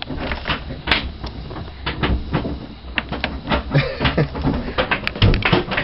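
Irregular knocks and clatter over a steady low rumble inside a truck cab standing flooded with muddy water up to the gear shifter.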